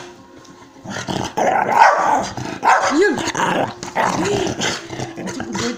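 Dog growling and barking in a play scuffle, starting about a second in, with a couple of short rising-and-falling yelps: the dog is defending a woman against a man's mock attack.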